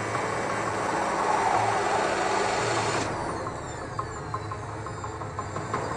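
Formula 1 car's 1.6-litre turbocharged V6 hybrid engine heard onboard at racing speed. About halfway the sound turns duller and a run of light ticks comes through.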